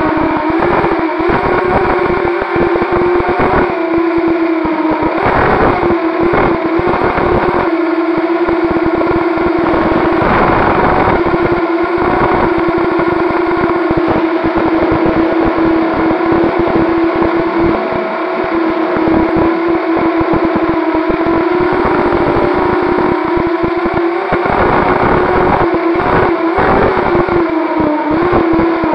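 Brushless motors and propellers of a 250-class FPV racing quadcopter, whining at a steady pitch that bends briefly about five seconds in and again near the end as the throttle changes. A rough low buffeting runs underneath.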